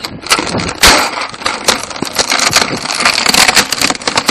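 Handling noise close to the microphone: rustling and scraping with many sharp clicks and knocks as the camera and the foam-dart blaster move and rub against the player's gear, with one louder knock about a second in.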